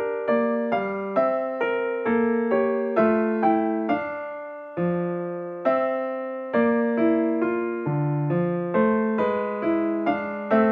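Background music: a piano tune with a note or chord struck about every half second, each dying away, and a couple of longer held notes midway.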